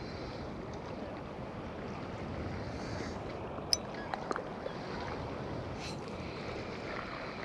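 Steady wash of wind and sea, with a few short clicks about halfway through.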